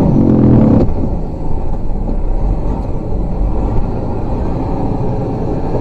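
Truck engine running with a steady low rumble as the truck drives through floodwater, heard from inside the cab, a little louder in the first second.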